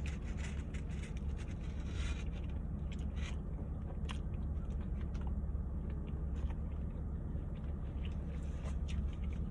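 Close-up chewing and mouth sounds of someone eating, with short wet clicks, most frequent in the first few seconds, over a steady low hum.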